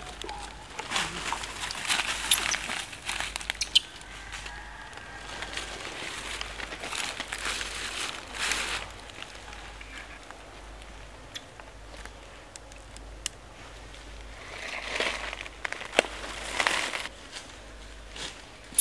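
Irregular rustling and crackling in dry leaf litter, in several bouts with scattered sharp clicks.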